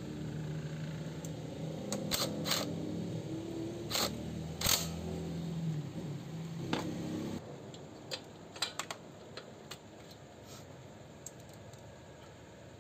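Sharp metallic clicks and taps of small parts and hand tools being handled during work on a scooter's fuel injector, five louder ones in the first seven seconds and smaller ones after. Under them a steady engine-like hum runs and cuts off about seven seconds in.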